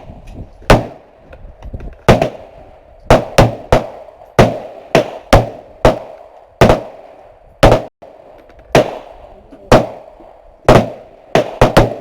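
Gunfire at a shooting range: about eighteen sharp shots at uneven spacing, some coming in quick strings of two or three, each with a short ringing tail.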